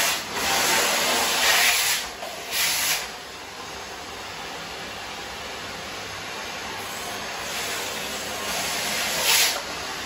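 Shark upright vacuum cleaner running, its hose sucking across a wooden floor with a steady hiss. Louder gritty surges in the first three seconds and again near the end are crumbs rattling up the hose.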